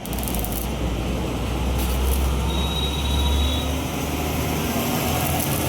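Arc welding: a steady low hum under continuous noise, the hum easing a little past halfway.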